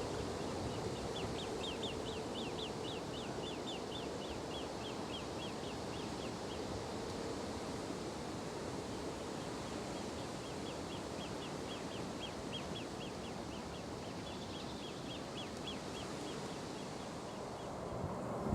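A small bird calling in fast runs of short, high notes, three runs in all, over a steady background hiss.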